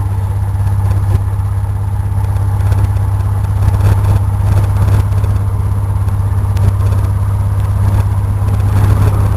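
Cessna 172's engine and propeller running steadily, heard from inside the cabin as a constant low drone.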